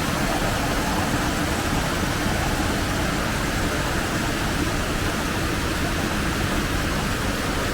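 Waterfall water rushing steadily, a constant even noise.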